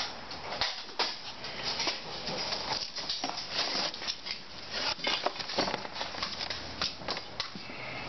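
Handling noise: a rag rustling and rubbing over a steel brake disc while the disc is turned and slid about on its cardboard box, in a string of irregular scrapes and light knocks.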